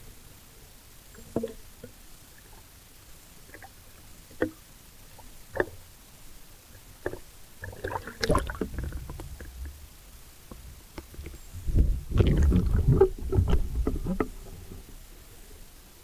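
Water sloshing and gurgling against a handheld 360 camera at the waterline, with a few short sharp knocks. Louder splashing comes about halfway and again in a longer, heavier spell near the end as the camera dips under the surface.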